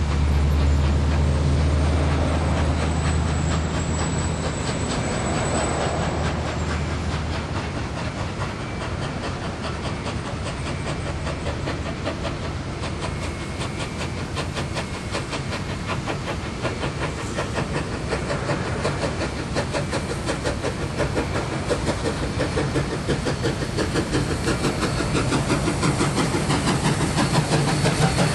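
Two BB18¼ class 4-6-2 steam locomotives double-heading a train, their exhaust chuffing in a rapid, even beat with steam hiss. The beat grows louder near the end as the locomotives come close. A steady low drone underlies the first several seconds.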